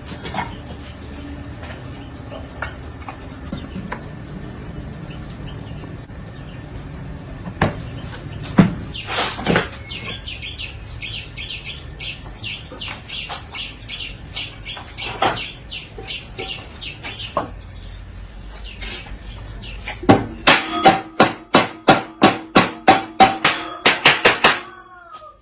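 Scattered single knocks and a run of short high chirps. For about the last five seconds come rapid, ringing taps, about four or five a second, that stop abruptly.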